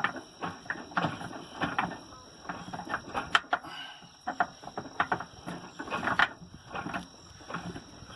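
Irregular metal knocks and clanks, a few each second, from tools working loose the clamps that hold a tractor's dual wheel rim.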